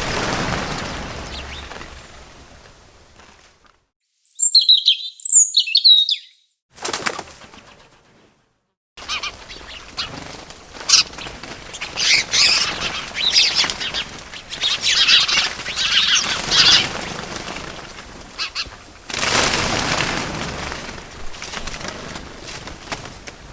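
Edited bird sound effects: rushes of wing flapping and a few clean chirps cut in against dead silence, then a run of busier chirping over a steady background.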